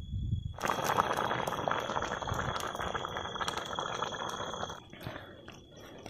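Chicken and onions sizzling and crackling in a cooking pan over a fire as they are mixed. The dense crackle starts suddenly about half a second in and dies down near the end.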